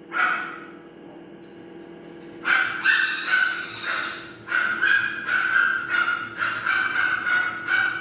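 Hand-fed parrot chick begging: a short call at the start, a longer run of calls from about two and a half seconds in, then calls repeating about twice a second. A steady low hum runs underneath.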